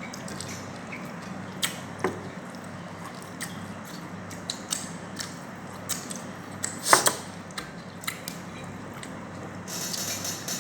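Cutlery clicking and scraping against a plate during a meal, with a sharper knock about seven seconds in, over a steady low hum.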